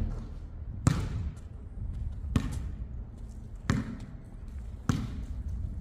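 A basketball bouncing on a hard outdoor court, four separate bounces about a second and a half apart, over a steady low rumble.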